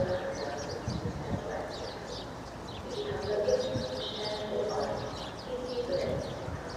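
Small birds chirping, with pigeons cooing in short held calls.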